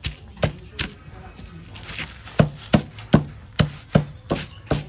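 Rhythmic chopping knocks on a hard surface during food preparation, a few at the start and then a steady run at about three strikes a second through the second half.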